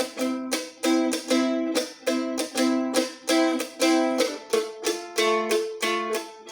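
Mandolin strummed with a Pickboy pick: a steady rhythm of chords, with a change to a new chord about two-thirds of the way through.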